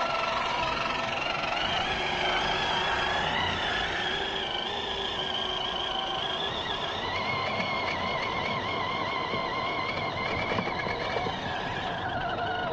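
RC scale crawler's electric motor and gearbox whining. The pitch wavers up and down as throttle and load change while it crawls over rough ground.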